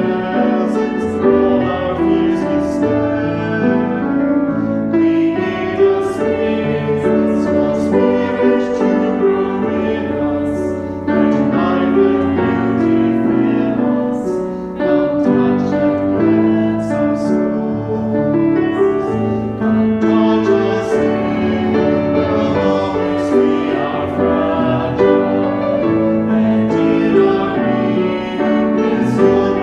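Music: singing with piano accompaniment, continuous throughout.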